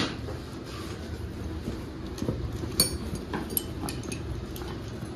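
Light clicks and taps of hand tools being handled and taken out of a tool bag, a sharper click at the very start, over a steady low background rumble.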